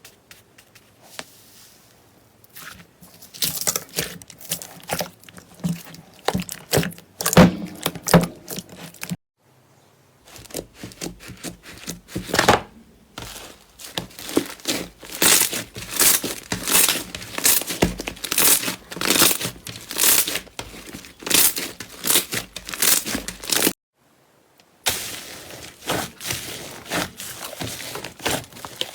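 Slime being pressed and worked by hand, giving dense runs of crackling, popping clicks. The sound breaks off twice for about a second.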